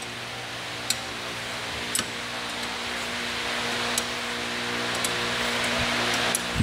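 Open-ended spanner working the union nut off a model steam locomotive's superheater element pipe, giving a few faint metallic clicks about a second apart. Under them runs a steady mechanical hum.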